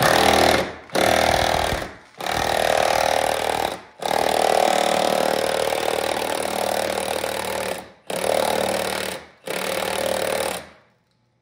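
Cordless impact wrench hammering on a rusted, torch-heated leaf spring mounting bolt, in six bursts with short pauses between them, the longest about four seconds, stopping shortly before the end.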